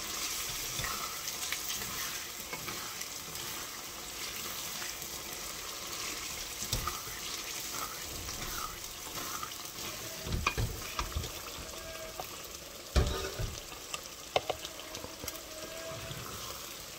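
Minced meat and spinach sizzling in oil in an aluminium pot as it is stirred with a wooden spatula, the spatula knocking against the pot a few times in the second half, loudest about 13 seconds in. The sizzle is the last of the moisture frying off as the keema is browned dry.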